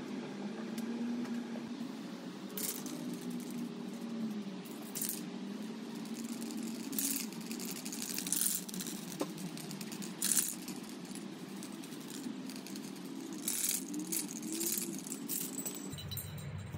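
A series of short, irregular rattles and clicks, about eight in all, over a steady hum.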